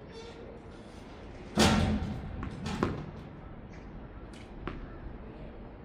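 Tennis ball struck hard by a racket about a second and a half in, a second sharp hit about a second later, then a few light taps.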